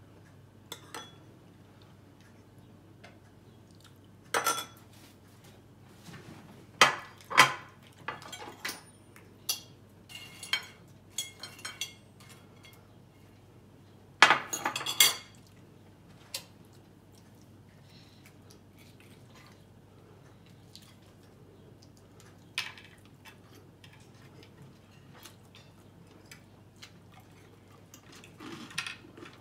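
Cutlery and serving utensils clinking and scraping against plates and serving dishes in scattered, irregular knocks, with the loudest clatters about 7 and 15 seconds in.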